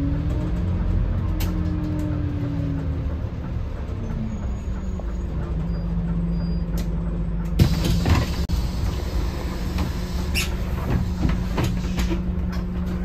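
Scania K280CB bus with its DC09 diesel engine running, the engine note dropping over the first few seconds, then holding steady. About seven and a half seconds in comes a short, loud burst of hiss and clatter.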